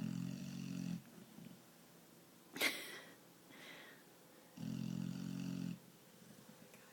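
A small female puppy snoring loudly in her sleep: two drawn-out deep snores of about a second each, one at the start and one about two-thirds through, with a short sharp breath noise between them.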